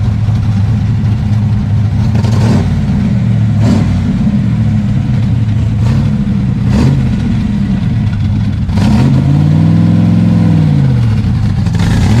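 Factory Five Type 65 Daytona coupe's V8 running at low speed with a steady exhaust note and a few short sharp cracks as it pulls away, then revving up and back down once near the end.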